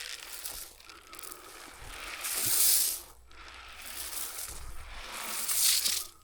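Granular deer mineral attractant being poured and shaken out of its bag onto the ground: a hissing, rustling pour, loudest twice, once in the middle and once near the end.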